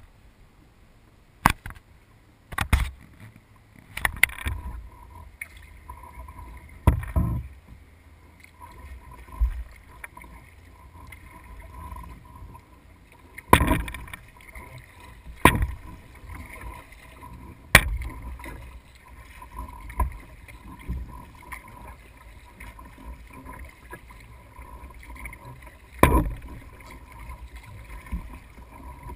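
Kayak paddle strokes: about ten sharp splashes and knocks of the paddle blade in the water, spaced irregularly a second or several apart. Between them there is low water and wind noise with a faint steady hum.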